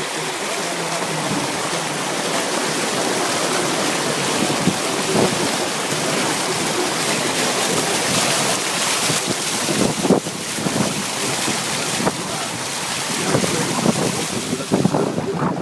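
A car driving through deep muddy floodwater: water spraying and splashing against its side and wheel in a steady rush, with wind buffeting the microphone.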